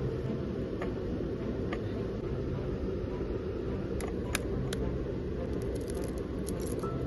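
A steady low rumble with a few small clicks, then the crackle of a tiny quail egg's shell being broken open by fingers near the end.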